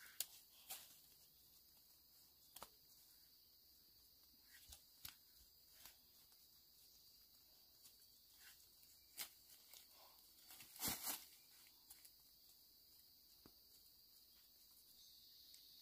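Near silence, broken by faint scattered clicks and rustles, with a short cluster about eleven seconds in.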